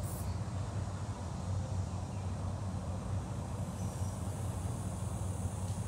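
Steady low hum of outdoor background noise with no clear single event.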